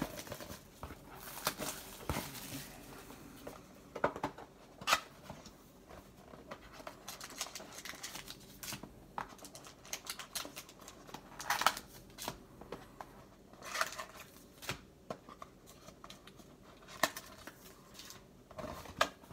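Cellophane shrink wrap crinkling and tearing off a cardboard trading-card box, then the box opened and the packs inside handled, in irregular rustles and sharp little crackles.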